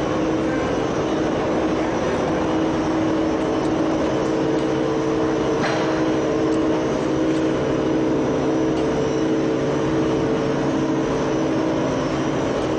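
Steady machinery roar of a gas-fired tunnel kiln running, with a few steady hum tones that shift slightly about two seconds in and a faint click near the middle.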